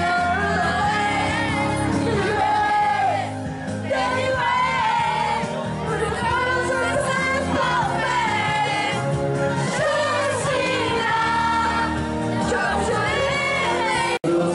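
Pop music playing loudly while a group of people sing along and shout. The sound cuts out for a moment just before the end.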